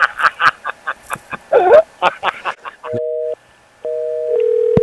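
A Gollum-style throaty clicking and gulping sound effect: a fast run of clicks with a loud gliding croak in the middle. Then a telephone line gives two short two-tone beeps half a second apart and goes over to a steady dial tone.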